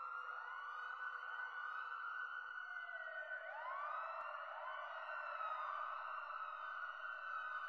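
A siren-like electronic sound: overlapping rising sweeps, about one a second, each gliding up and then holding.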